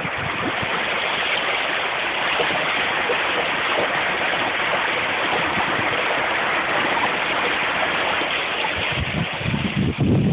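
Irrigation water gushing out of an outlet into a concrete channel: a steady rushing splash. Wind rumbles on the microphone near the end.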